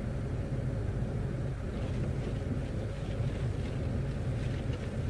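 Car running, heard from inside the cabin: a steady low rumble.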